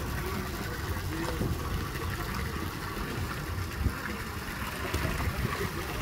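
Water sloshing and splashing as a crowd of brown pelicans jostles on the surface, over a steady low rumble, with a brief knock about four seconds in.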